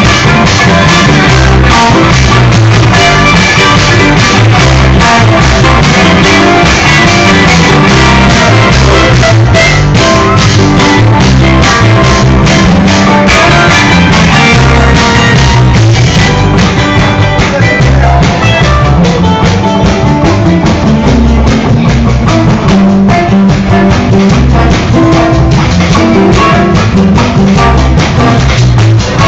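A live band playing loudly: drum kit with a steady beat, electric guitar and bass, heavily overloaded on a phone's microphone.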